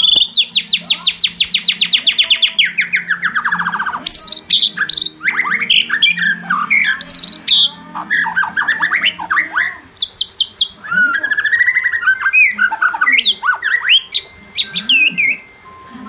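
White-rumped shama singing loudly at close range. It opens with a fast trill of rapid notes falling in pitch over the first couple of seconds, then runs into varied whistles, slurred notes and chatter.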